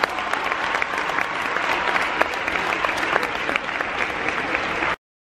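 Audience applauding after a floor routine, dense clapping that cuts off suddenly near the end.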